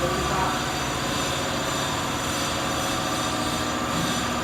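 Motor of an M88 double-head aluminium cutting saw running steadily, its blade spinning at speed before the test cut, with an even hum and whine.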